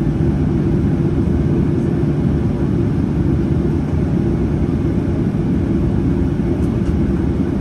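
Steady low rumble inside the passenger cabin of a Boeing 737-800 on the ground after landing: engine and airflow noise, unchanging throughout.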